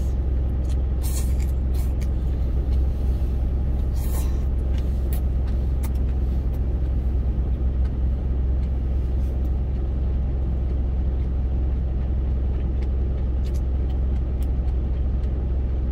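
Truck engine idling steadily, a low hum heard inside the cab, left running to power the heater. A couple of short clicks about one and four seconds in.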